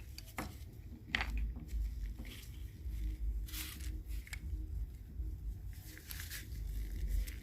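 Small metal air-line adapter and fitting being handled and unscrewed by hand: a few light clicks and soft rubbing sounds over a low steady rumble.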